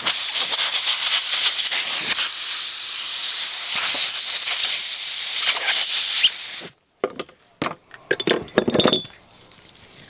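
Compressed-air blow gun with a long nozzle blasting air over freshly washed engine parts: a loud, steady hiss that cuts off suddenly after about six and a half seconds. A few light knocks of parts being handled follow.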